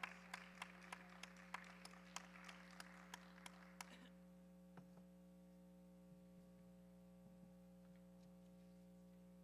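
Light audience applause with sharp, evenly paced claps about three a second, stopping about four seconds in. It gives way to near silence with a faint steady hum.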